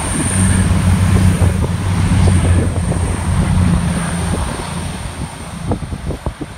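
Diesel passenger train passing close below, its engines giving a steady low drone that eases off after about four seconds, with wind buffeting the microphone.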